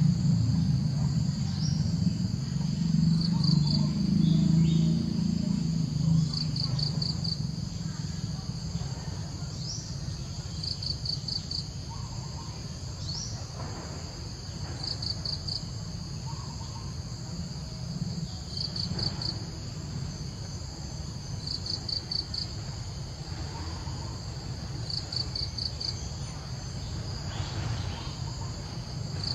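Insects calling: a steady high-pitched trill broken by short bursts of rapid chirps about every three to four seconds, over a low rumble that is loudest in the first few seconds.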